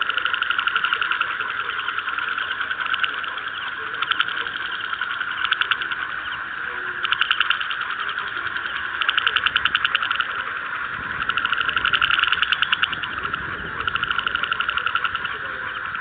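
A chorus of many frogs calling at once: a continuous, rapidly pulsed trilling that swells into louder bouts every second or two.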